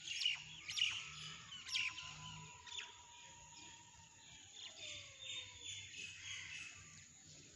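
Faint birds chirping in the background, short high calls scattered throughout. A thin, long tone slowly drops in pitch through the middle.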